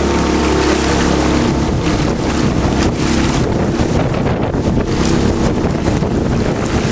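Outboard motor of a coaching launch running steadily at cruising speed, a constant hum, with wind buffeting the microphone.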